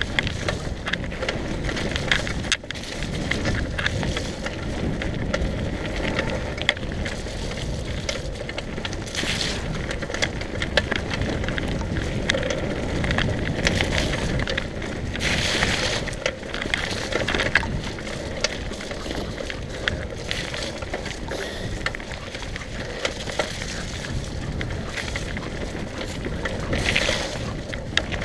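Mountain bike ridden fast down a dirt forest trail: tyre noise on the ground with the bike rattling and knocking over bumps, and a few brief swells of hiss.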